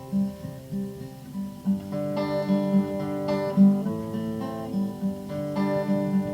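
Acoustic guitar playing the instrumental intro of a song: chords over a steadily repeating low note, with no voice yet.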